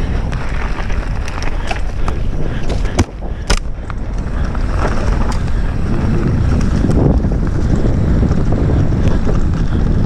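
Mountain bike descending a dirt forest trail at speed: wind buffeting the on-bike microphone over tyre and trail noise, with sharp knocks and rattles from the bike over rough ground. About three seconds in, the noise briefly drops away.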